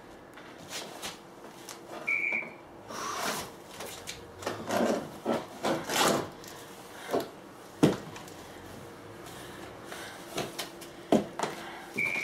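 Padded winter clothing rustling and shoes and hands scraping and knocking on wooden deck boards as a person gets up off the floor, in irregular bursts. A short high beep sounds twice, about ten seconds apart.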